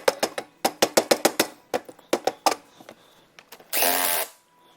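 Runs of rapid, evenly spaced metallic clicks from a hand ratchet wrench being worked back and forth, then a short hiss lasting about half a second near the end.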